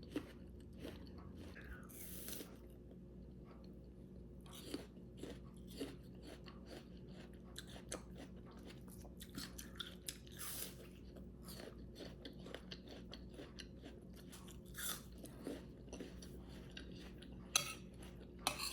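A person chewing crunchy food, a mouthful of oatmeal topped with roasted pumpkin seeds and pecans, with many small irregular crunches and clicks.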